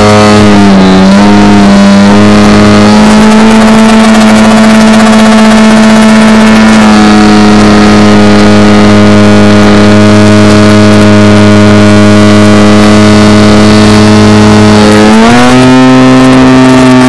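RC aerobatic plane's motor and propeller heard from an on-board camera, running at a steady throttle with a brief dip in pitch about a second in and a rise in pitch near the end.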